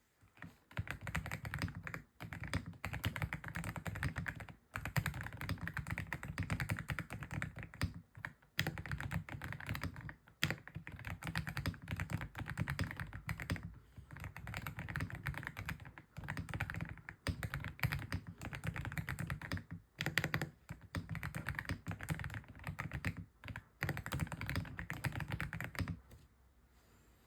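AULA F87 Pro mechanical keyboard with grey switches being typed on fast and continuously, a dense run of keystroke clicks and key thocks broken by a few brief pauses. It stops about a second before the end.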